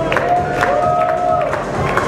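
Audience cheering and clapping, with one long held shout from a voice in the first second and a half.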